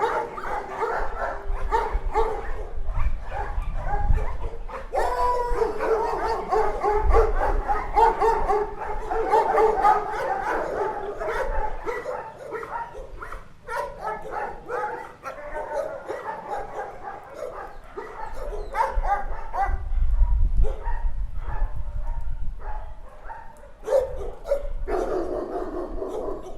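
Many dogs in a dog shelter barking at once, a dense, overlapping chorus of barks with yips and whimpers mixed in.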